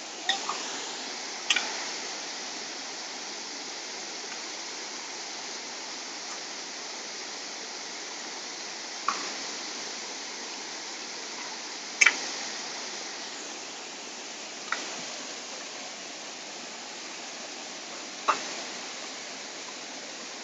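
Steady rush of a fast stream tumbling over rocks, with six sharp metallic clinks of a spoon knocking against the rim of a large metal cooking pot during stirring, the loudest about twelve seconds in.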